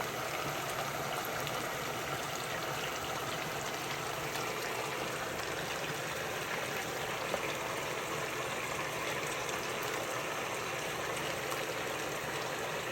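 Hot oil sizzling steadily around pieces of marinated chicken 65 deep-frying in a pan, an even hiss dotted with fine crackles.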